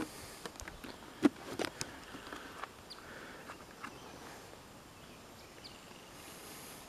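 Handling noise from a motorcycle helmet being turned over in the hands: a few light taps and clicks in the first two seconds, the loudest just over a second in, then only a faint outdoor background.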